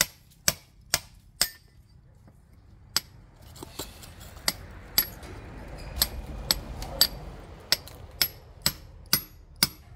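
Hammer striking brick in sharp, ringing taps about two a second, pausing for a couple of seconds near the start. A rustling, scraping noise runs under the taps through the middle.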